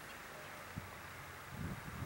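Faint outdoor background with wind buffeting the microphone, setting in low and uneven about halfway through.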